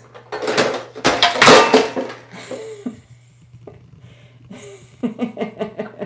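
Plastic toy bucket of a shape sorter and its contents knocked off a counter by a parrot, clattering loudly onto the hard floor for about two seconds.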